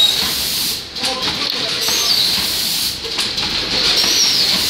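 Automatic 10-head weighing and bag packing machine running: a steady hiss of machine noise that dips briefly about every two seconds, with faint high whistling glides.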